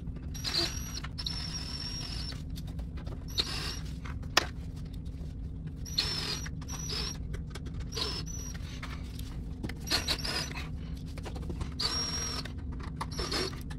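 Cordless drill/driver running in short bursts of high motor whine as it snugs screws into a refrigerator's cardboard rear access cover, with one longer run about a second in. A steady low hum underneath.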